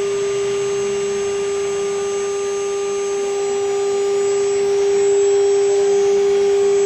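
CNC router spindle running with a steady whine, over a continuous hiss of machine noise.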